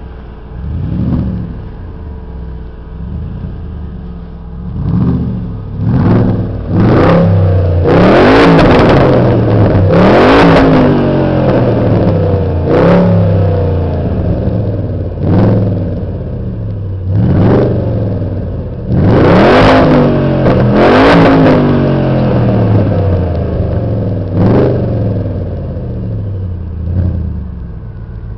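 Audi RS6 Avant's twin-turbo V8 idling and revved about a dozen times, each rev rising and dropping back to idle, heard close to the tailpipes. The longest, loudest revs come about eight and twenty seconds in.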